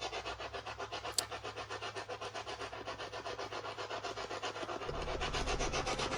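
Spirit box (ghost box) radio sweeping rapidly through stations, giving a steady choppy static of about ten short bursts a second.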